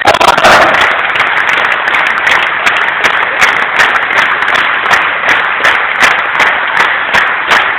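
A large crowd applauding steadily, dense clapping with no break.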